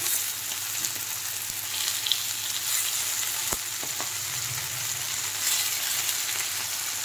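Corn and fenugreek kebabs shallow-frying in hot oil in a frying pan, a steady sizzle, with a few light clicks of a fork against the pan about halfway through as the kebabs are turned over.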